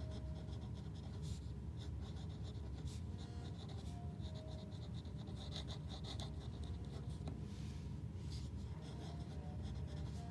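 Pen writing cursive on paper: a run of short scratching strokes as the letters are formed, over a low steady hum.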